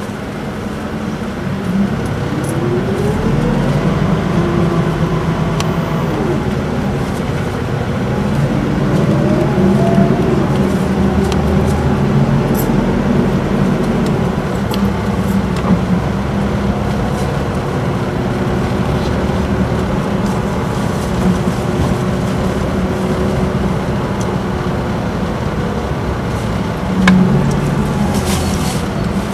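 Isuzu Erga city bus heard from inside, its four-cylinder turbo-diesel and torque-converter automatic pulling the bus up to speed. The engine note rises twice in the first ten seconds, then settles into a steady drone as it cruises. There is a single thump near the end.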